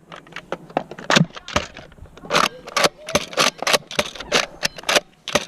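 Plastic Nerf blaster being fixed by hand: an irregular run of sharp plastic clicks, clacks and rattles, several a second.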